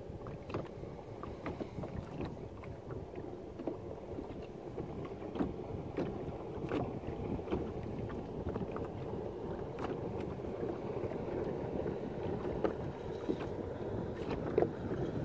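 Small waves lapping against a boat's hull, with wind on the microphone and scattered light ticks.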